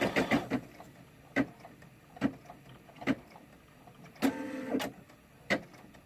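Brother SE600 embroidery machine tacking down felt. A fast run of stitches stops about half a second in, then single needle strikes come roughly once a second, with a short motor whine a little after four seconds.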